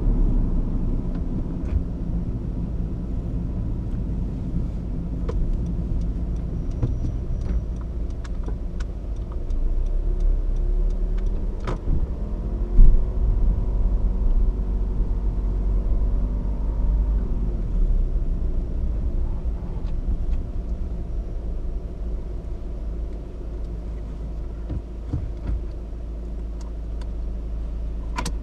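Honda CR-V's 1.6 i-DTEC four-cylinder turbodiesel running while the car drives, over a steady rumble of tyres on the road; the engine note shifts slowly partway through. Scattered light clicks and one sharp knock near the middle.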